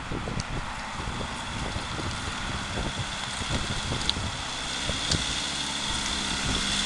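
Off-road 4x4 engine running at low speed as the vehicle crawls through mud, growing gradually louder as it approaches, with wind buffeting the microphone.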